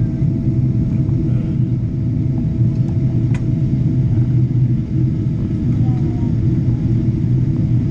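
Steady low rumble of an airliner's engines and airflow heard inside the passenger cabin during descent, with a faint steady whine over it and one brief click about three seconds in.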